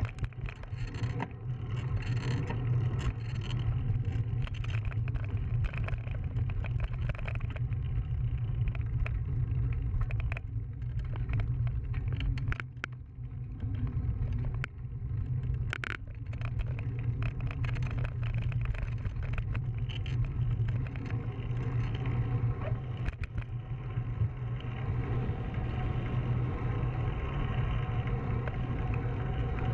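Steady low rumble of a bicycle ride heard from a handlebar-mounted camera: wind on the microphone and the tyres rolling on asphalt, with scattered clicks and knocks from the bike and its mount. It eases briefly about halfway through.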